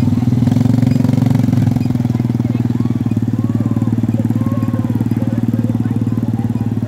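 ATV (quad bike) engine running steadily at close range while the quad is ridden, with a fast, even firing pulse.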